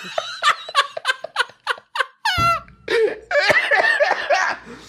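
Men laughing hard in quick, repeated ha-ha bursts, with a high, squeaky, wheezing laugh breaking out about two and a half seconds in.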